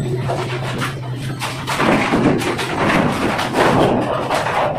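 Plastic door panel being handled and set into a brick doorway: irregular knocks and scraping as it is pushed against the frame.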